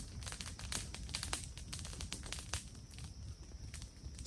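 Freshly lit campfire crackling, with many irregular sharp pops and snaps from the burning wood.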